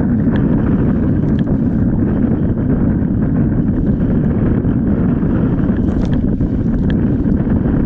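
Heavy wind buffeting the microphone on a kayak moving through choppy water, a steady low rumble with the odd splash of water against the hull.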